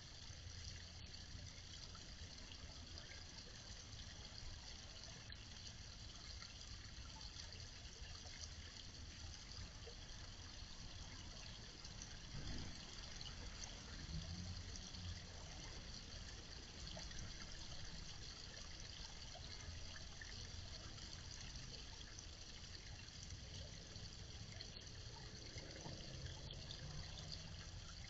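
Water from a small garden pond waterfall trickling steadily over rocks into the pond, faint and unchanging.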